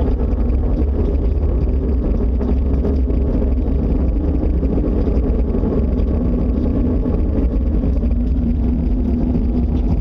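Loud, steady low drone from the sky, one of the unexplained 'strange sky sounds' reported worldwide, holding unchanged without breaks. The recorder says it was shaking the house and the ground and first thought it was a tornado.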